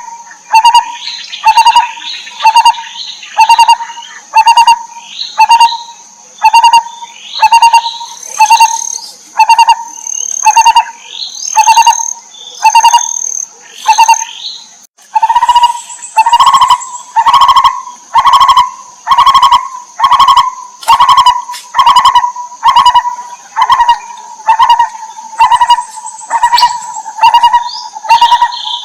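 Barbet calling, a low note repeated about once a second, with higher chirping over it and a steady high-pitched insect-like whine behind. The calls grow louder after a break about halfway through.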